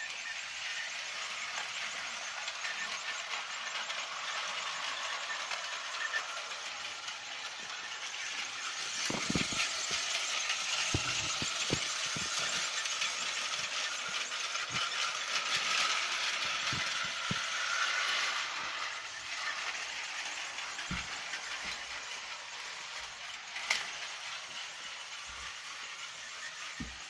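A battery-powered Tomy toy train running on its plastic track, with a steady whirring and rattling that grows louder in the middle and eases off later. A few low knocks come about a third of the way in, and a sharp click sounds near the end.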